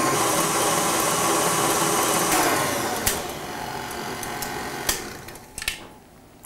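KitchenAid Artisan stand mixer running with its wire whisk, beating liquid cheesecake batter. About two seconds in the motor sound falls away and fades out as the mixer is turned down and off, with a couple of sharp clicks.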